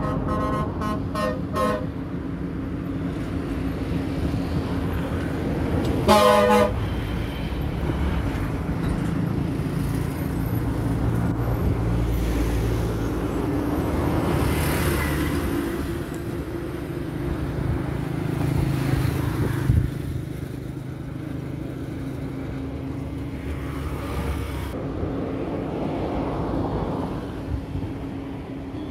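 Diesel locomotive hauling a slow works train: its engine runs with a steady low drone and rumble, and its horn sounds in a run of short toots in the first couple of seconds, then one loud blast about six seconds in.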